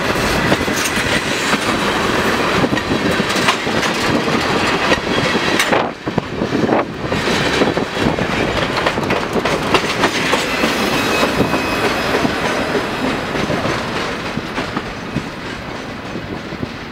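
Freight train cars, tank cars and then a boxcar, rolling past close by: steel wheels click over the rail joints amid steady rolling noise. The sound fades over the last few seconds as the final car moves away.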